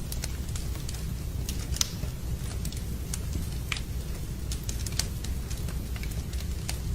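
Wood fire in a fireplace crackling: irregular sharp pops and snaps over a steady low rumble, with a louder pop about two seconds in and another about five seconds in.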